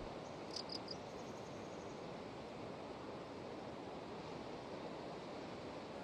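Distant ocean surf breaking over a rocky shore, a steady rushing wash. About half a second in come three short high chirps, and a faint thin insect buzz sits above the surf for the first two seconds.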